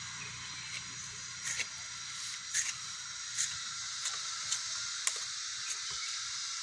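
Irregular sharp clicks and taps, about a dozen, scattered over a steady high hiss.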